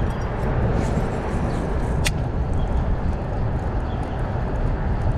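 Strong wind buffeting the microphone: a steady low rumble, with one sharp click about two seconds in.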